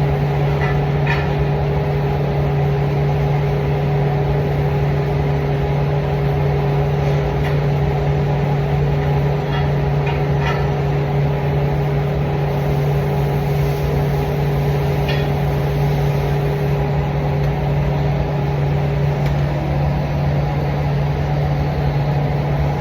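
Steady machine hum: a strong low drone with a higher steady tone that drops in pitch near the end, and a few faint clicks.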